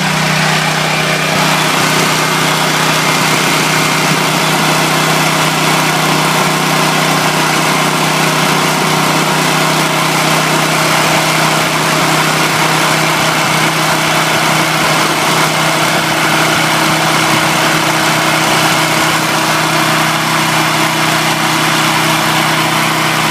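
Powerland portable generator's OHV single-cylinder engine running steadily on natural gas, a constant even hum, freshly started with a new E3 spark plug.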